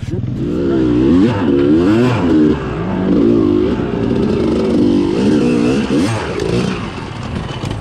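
Yamaha YZ250 two-stroke dirt bike engine revving up and down while being ridden on a trail, its pitch rising and falling every second or so, easing off near the end.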